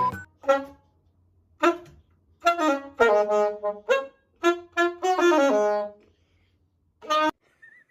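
A saxophone-like wind instrument playing about eight short phrases of notes, with silent pauses between them.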